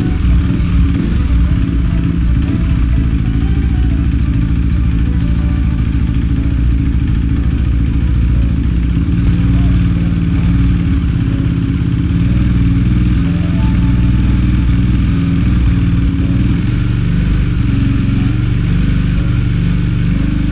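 KTM RC 390's single-cylinder engine idling steadily after being revived from a year of storage, running on as it warms up.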